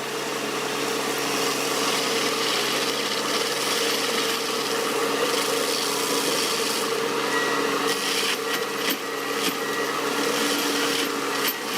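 Heavy machine running steadily with a rasping, grinding noise of wood being chewed up, typical of a forestry mulcher at work. Several sharp cracks come in the last few seconds.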